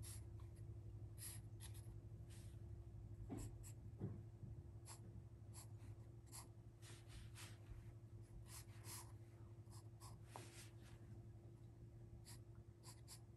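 Pencil strokes scratching on drawing paper: short, faint, irregular sketching strokes, over a low steady hum.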